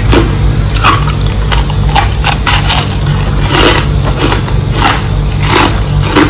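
Crushed ice being bitten and chewed: a steady run of crisp crunches, about two or three a second.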